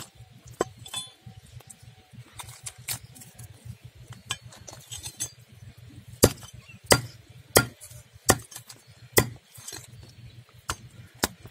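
Blade chopping through fish onto a wooden chopping block: sharp single chops at uneven intervals, then a run of about five strikes roughly every three-quarters of a second from about six seconds in.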